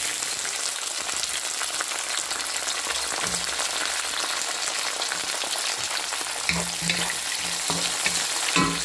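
Chopped onions, garlic, tomatoes and red bell pepper strips sizzling in hot oil in a nonstick pan: a steady frying hiss with fine crackling.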